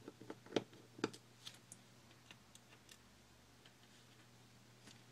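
Faint, light clicks and ticks of a small screwdriver on the iPhone 4's tiny internal screws and metal parts as a screw is taken out, scattered over the first three seconds, then quiet.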